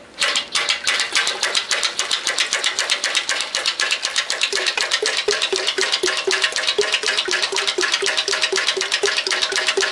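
Powerwise 4042 double diaphragm pump running, its strokes clacking in a rapid, even rhythm of several a second. The discharge comes out in pulses with each stroke, the pulsation typical of diaphragm pumps without a surge suppressor.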